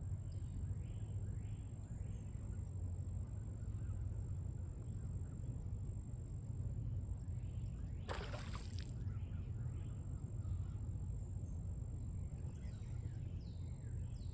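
Outdoor ambience with a steady low rumble and faint scattered bird chirps. About eight seconds in, a large bird gives one loud honk-like call lasting under a second.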